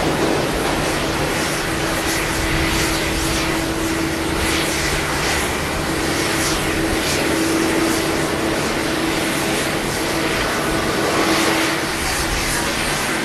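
Boeing 777-300's twin turbofan engines running at taxi power as the airliner taxis: a steady rush with a held, even hum.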